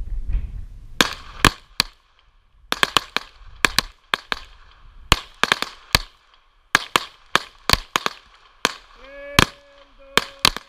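Pistol shots fired in rapid strings, several sharp cracks in quick succession, with short pauses between strings. Near the end a held pitched tone sounds in short broken notes between the shots.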